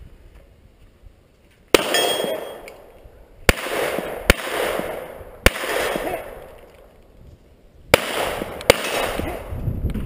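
Six gunshots fired at an uneven pace, some about a second apart and others two or three seconds apart, each trailing off over about a second.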